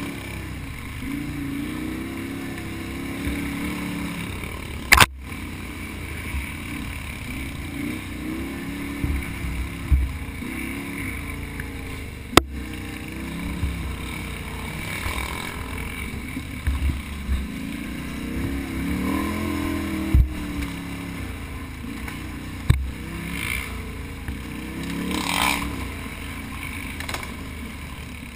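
Can-Am Outlander XXC ATV engine running hard under race conditions, revving up and falling back over and over as the throttle is worked. A few sharp knocks cut through, about four in all.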